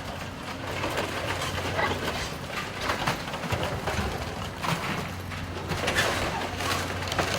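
Demolition machine tearing apart a building's roof: its engine runs steadily under irregular crunching and cracking of debris.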